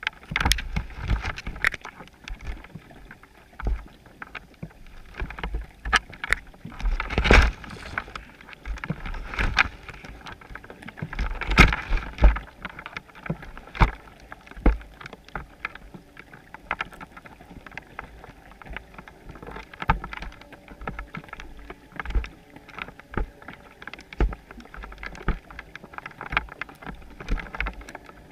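Underwater sound through a GoPro's waterproof housing on a chum pot: irregular clicks and knocks over a low rumble of moving water. The knocks are loudest in two clusters, about 7 and 12 seconds in.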